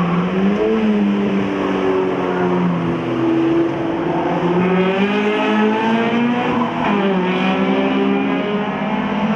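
Several hatchback race cars' engines running hard in a pack on a track, their pitch rising and falling repeatedly as they go round.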